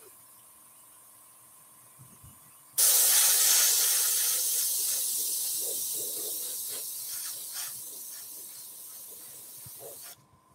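SprayCraft SP50K dual-action airbrush spraying paint through a stencil: a loud hiss of air that starts suddenly about three seconds in, slowly fades, and cuts off near the end.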